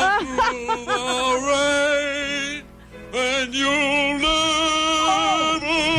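A man singing in an operatic style, holding long high notes with a wide vibrato, with a short break for breath about two and a half seconds in and a higher held note after about four seconds.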